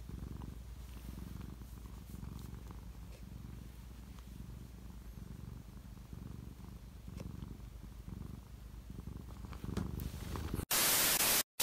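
Domestic cat purring steadily while being scratched about the head, a low pulsing rumble. Near the end a loud hiss of noise cuts in abruptly, breaks off briefly, and starts again.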